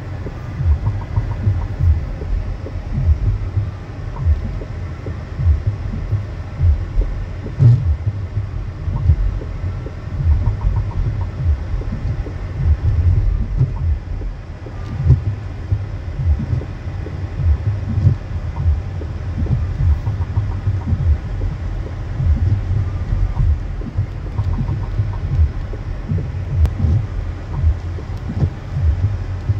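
Low, uneven rumble inside a moving car: road and engine noise with irregular throbbing thumps.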